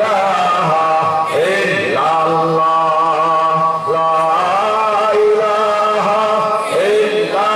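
A man's voice chanting in long, held notes that slide between pitches, pausing briefly every few seconds.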